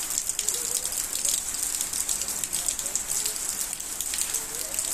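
Torrential rain pouring steadily: a dense hiss with many close, sharp drop patters.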